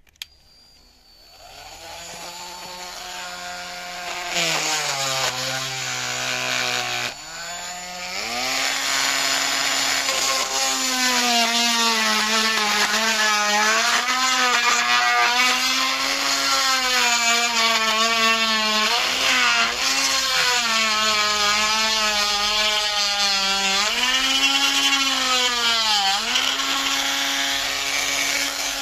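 Handheld rotary tool cutting through a hard plastic speaker housing, its motor spinning up and then whining loudly. The pitch sags as the bit bites into the plastic and comes back up as the pressure eases.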